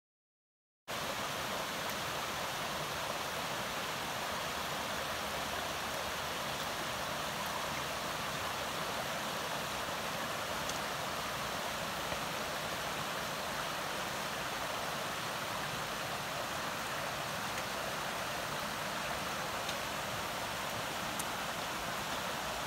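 About a second of dead silence, then a brook running steadily, an even, unbroken water noise.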